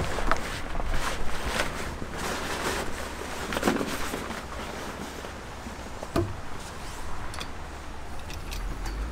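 Large canvas sunshade rustling and flapping as it is pulled down and bundled by hand, with a few knocks, over wind buffeting the microphone.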